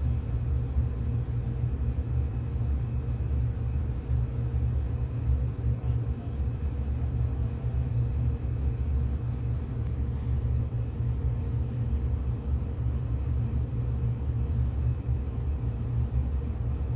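Pot of tomato stew boiling hard on a stove: a steady low rumble with a fine, irregular bubbling flicker.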